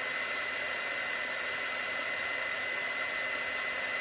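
Handheld embossing heat tool blowing steadily, a rush of hot air with a steady high whine, melting white embossing powder on stamped black cardstock.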